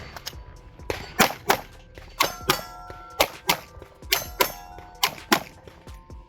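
Rapid shots fired in quick pairs, about five pairs, each hit clanging off steel targets that keep ringing after every strike.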